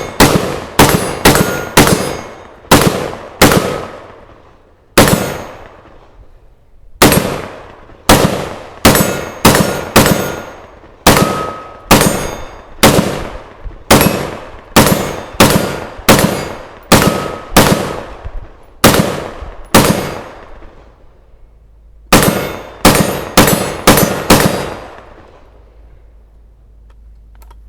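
Gunshots fired in quick single shots, about two a second, in long strings with short pauses. Each shot rings out with a short echo behind it.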